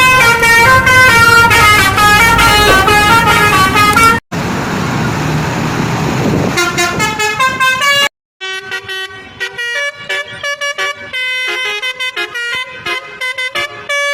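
Telolet basuri bus horn playing a fast tune of short stepped notes. About four seconds in, the sound cuts to a few seconds of rushing engine and traffic noise, with the horn notes returning. After a second cut the horn melody plays on again.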